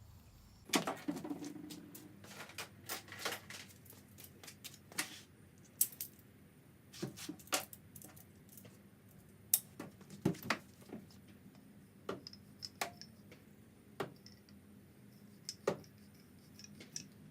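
Irregular sharp metallic clicks and clinks, one or two at a time with gaps between, as locking pliers (Vise-Grips) are clamped on a metal threaded insert and turned to screw it into a hole in a wooden leg.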